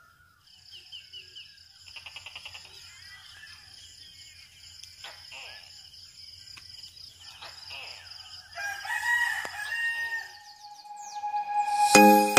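Early-morning birds chirping and trilling over a steady high-pitched drone, with a rooster crowing once for about two seconds, about nine seconds in. Music with bell-like notes starts near the end.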